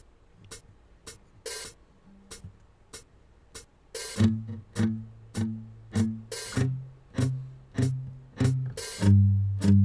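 Instrumental intro of a song: a steady beat of sharp percussive ticks about twice a second, joined about four seconds in by plucked low guitar notes, one every half second or so, that grow louder near the end.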